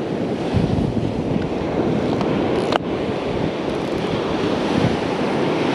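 Rough surf breaking and washing steadily, with wind buffeting the microphone.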